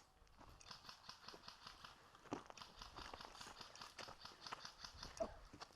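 Faint, quick footsteps crunching on leaves and ground litter, several steps a second, with a louder step or two near the middle and near the end.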